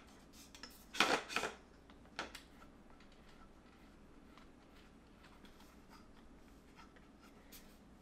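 Handling noise from a large telephoto lens being turned over in the hands: a short burst of rustling and small knocks about a second in, another brief one near two seconds, then quiet room tone with a few faint clicks.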